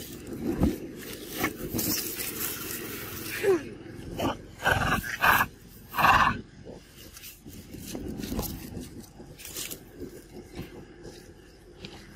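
Macaques giving a few short, harsh calls, loudest in three bursts between about four and a half and six and a half seconds in.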